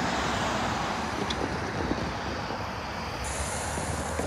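Cars passing over the road at a railroad crossing, a steady traffic noise.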